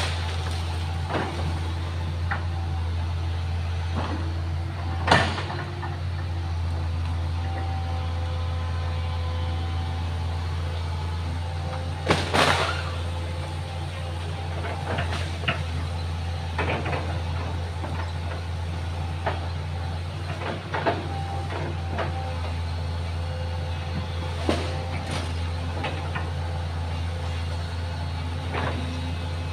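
Excavator engine running steadily with a low hum, with scattered knocks and clanks over it; the loudest knock comes about twelve seconds in.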